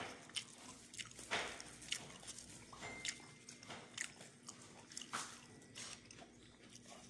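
Eating by hand from a shared spread on a plastic table cover: soft, irregular crunches, crackles and rustles as food is picked up and chewed.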